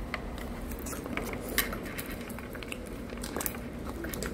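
Scattered light clicks and taps of small plastic food packaging being handled and opened by hand.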